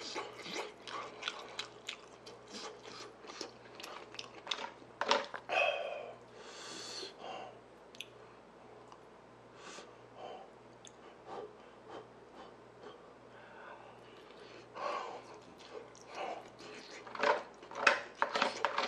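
Close-miked eating sounds: chewing and mouth smacks over fried rice, with clicks and scrapes of a metal utensil against the stainless pan, denser near the end.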